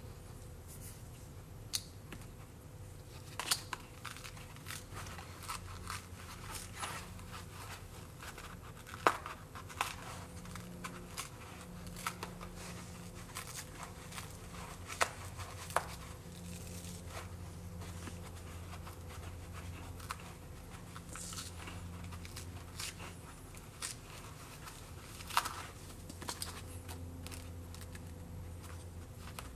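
Foam insert being torn and plucked by hand, a soft tearing and rustling broken by scattered light clicks and taps.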